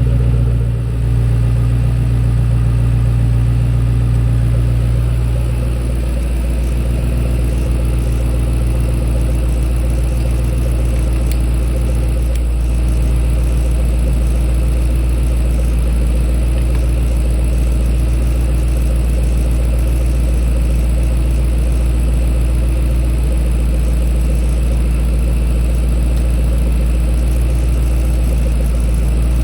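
Ford Mustang engine idling steadily after its battery replacement. The idle settles a little lower about six seconds in.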